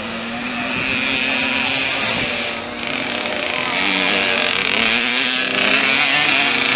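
Two-stroke mini motocross bikes (50cc and 65cc) revving hard as they ride past, a high buzzing engine note rising and falling with the throttle and shifts, getting louder as they come closer.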